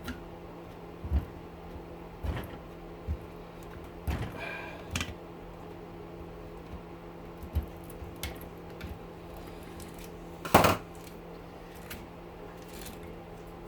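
Scattered metal clinks and knocks of hand tools working copper windings out of a scrap motor rotor, with the loudest knock about two-thirds of the way through. A steady low hum runs underneath.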